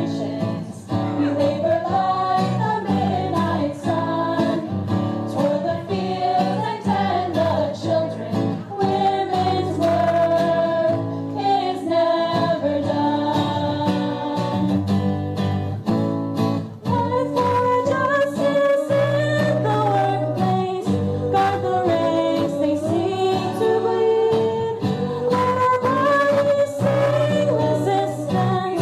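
A hymn sung by voices over guitar accompaniment, the sung melody moving over steady low notes.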